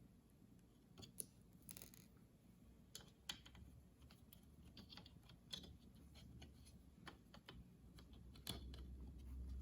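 Faint, irregular small clicks and scrapes of a small screwdriver and tiny screws being worked into a laptop's cooling-fan mount, with a couple of sharper ticks in the first few seconds.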